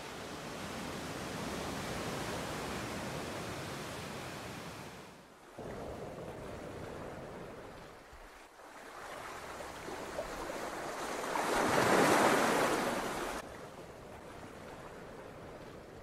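Sea surf washing onto a beach, with wind on the microphone. A louder wash of surf swells about twelve seconds in, then cuts off suddenly.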